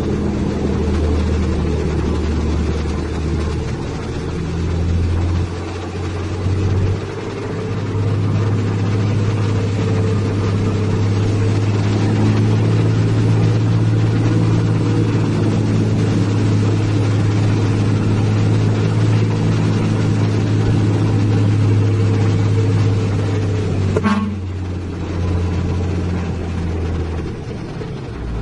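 Isuzu self-loader truck's diesel engine heard from inside the cab while driving, a steady low drone whose pitch shifts a few times. A short horn toot sounds about 24 seconds in.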